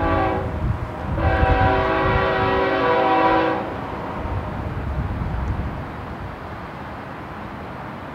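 Air horn of BNSF GE ES44DC diesel locomotives leading a double-stack intermodal train: a short blast, then a longer one of about two and a half seconds, a chord of several steady pitches. The low rumble of the locomotives and rolling train continues underneath and after the horn stops.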